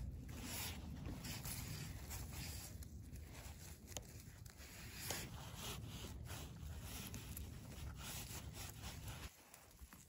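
Crackling, rustling and scraping of pine needles, twigs and moss as a gloved hand pulls chanterelle mushrooms from the forest floor, over a low steady rumble that drops away shortly before the end.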